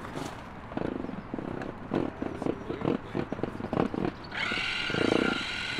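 Inflated vinyl pool float squeaking and rubbing as it is handled and pressed on, then a little over four seconds in a small electric motor starts and runs with a steady whine.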